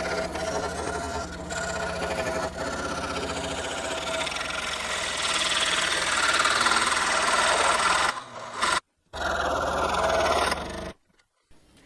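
Harbor Freight electric benchtop scroll saw running with its blade cutting through a wooden board, a steady buzzing hum. The sound breaks off abruptly twice near the end.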